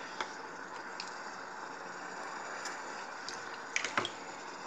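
Electric food steamer hissing steadily as it boils, with a few faint clicks and two sharper knocks close together near the end.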